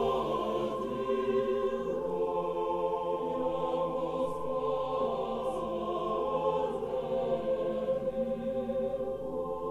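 Background music: the end of a song, long held chords with choir-like voices.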